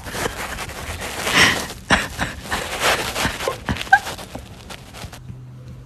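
A pit bull and another dog licking and snuffling at each other's mouths: wet licking clicks and noisy breaths, with a brief high squeak near four seconds in. The sound drops away about five seconds in, leaving a faint low hum.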